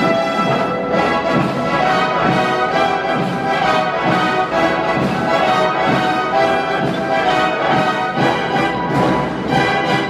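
High school wind band playing a piece, with brass instruments prominent in a full ensemble sound.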